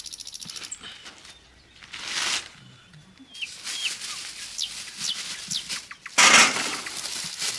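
Thin black plastic bag rustling and crinkling in bursts as a fish and then pointed gourds are pulled out of it. The loudest rustle comes about six seconds in.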